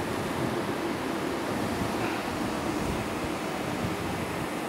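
Steady rushing air noise, even and unbroken, typical of cleanroom ventilation around a mask aligner.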